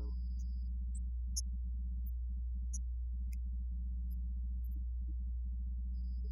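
Steady low electrical hum with a faint buzz over it, from the recording's sound system; apart from that the room is nearly silent.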